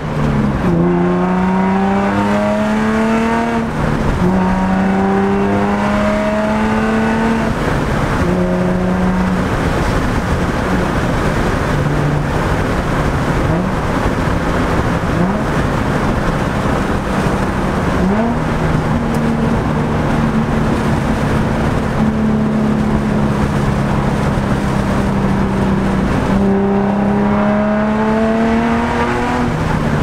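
Infiniti G35 coupe's 3.5-litre V6, heard from inside the cabin, pulling through the gears of a manual gearbox: the engine note climbs, drops at a shift about 4 and again about 8 seconds in, runs fairly steadily at cruise through the middle, then climbs again near the end.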